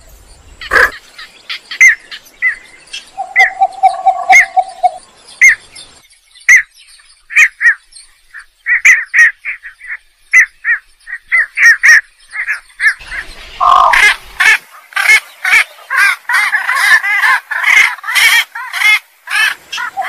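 Calls of Javan pond herons (blekok sawah) played as a bird lure: a string of short repeated call notes with a longer, lower held note about three seconds in. The calls thicken into a dense, overlapping chorus about two-thirds of the way through.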